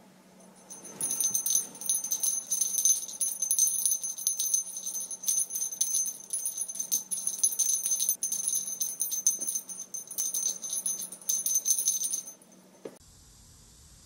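Small jingle bell on a feather wand cat toy jingling rapidly and irregularly as the toy is waved for a kitten to bat at. The jingling starts about a second in and stops abruptly a little before the end.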